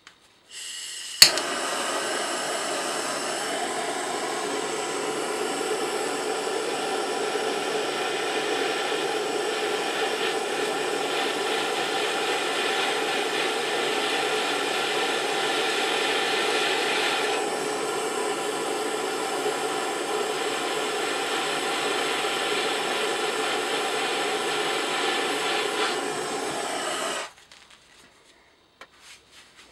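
Handheld blowtorch: a brief quieter hiss of gas, then a sharp click about a second in as it lights, after which the flame burns with a loud steady hiss for about 26 seconds and cuts off suddenly.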